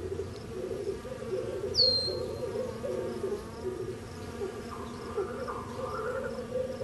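Wasp buzzing, its wing tone wavering in pitch. A short, high, falling chirp sounds about two seconds in, and faint rapid high ticking runs underneath.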